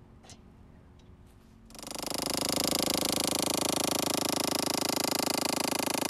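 Electric hammer drill driving a coupled copper ground rod into sandy soil: a few faint clicks, then from about two seconds in a loud, rapid, steady hammering.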